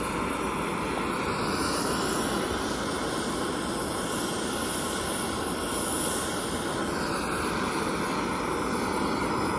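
Gas burner of a lightweight butane/propane canister camping stove burning steadily under a pot of water: a constant rushing roar.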